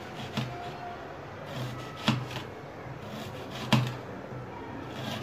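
Kitchen knife slicing onion on a plate, the blade knocking sharply on the plate with each cut: a light knock near the start, then two louder ones about one and a half seconds apart.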